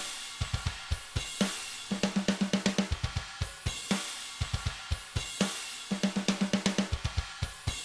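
Programmed sampled drum kit playing a beat of kick drum, cymbals and snare, the snare replaced by layered samples triggered by the apTrigga2 plugin. A fast fill of snare hits comes twice, about two seconds in and again about six seconds in.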